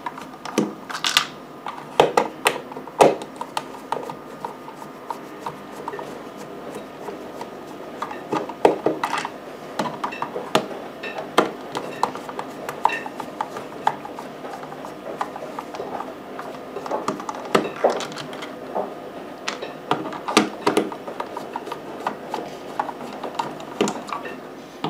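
Screws being unscrewed from the plastic case of a soldering station, with irregular clicks, scrapes and knocks as the screwdriver works and the case is handled and tilted on the desk.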